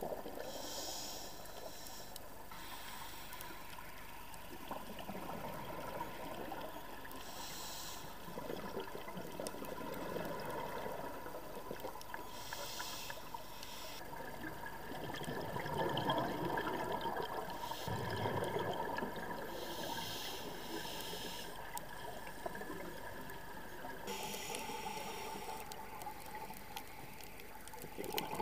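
Scuba diver's regulator breathing heard underwater: a hiss of inhaled air through the regulator every few seconds, alternating with the bubbling gurgle of exhaled air.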